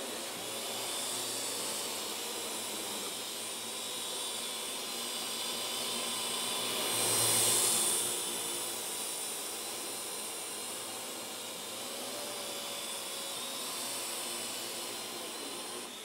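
Parrot AR.Drone 2.0 quadcopter's four electric motors and propellers whirring steadily in flight, growing louder a little past halfway as it passes close.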